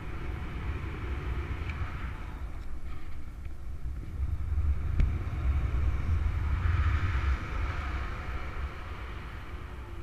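Wind rushing over a paraglider pilot's camera microphone in flight: a steady low rumble with a hiss that builds after a few seconds, is strongest a little past the middle, then eases near the end.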